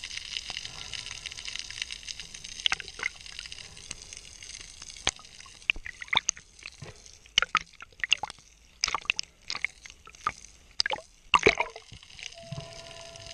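Water noise picked up by an action camera in its housing during a shallow freedive: a steady hiss, then from about five seconds in, many irregular sharp clicks and pops.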